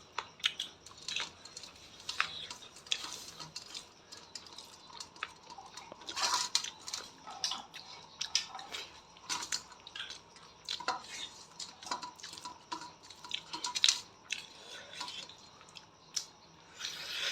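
A metal spoon clinking and scraping against dishes: many short, irregular clinks, some with a brief ring, the loudest about six seconds in and just before fourteen seconds.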